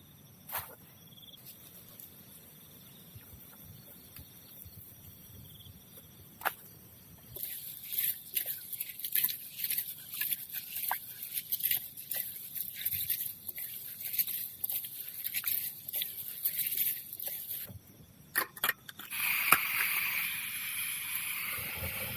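Camping gear being handled during dinner preparation: a few isolated clicks, then a long run of quick clicks, rattles and crinkles, and near the end a steady rushing hiss.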